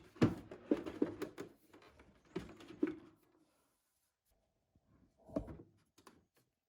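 Handling noises: a cluster of sharp clicks and knocks over the first three seconds, then a few more knocks about five seconds in.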